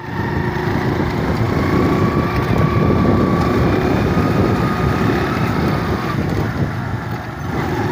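Small motorcycle being ridden, its engine running steadily under loud wind buffeting on the microphone.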